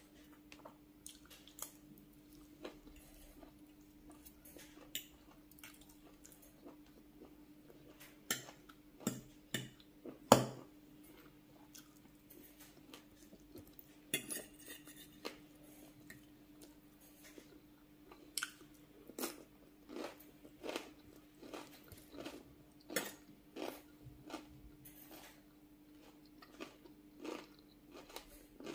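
Eating sounds: a metal fork clinking and scraping against a glass bowl and a plate, with chewing and crunching of rice, greens curry and fresh cucumber-and-tomato salad. Sharp clicks come every second or so, the loudest about ten seconds in, over a faint steady hum.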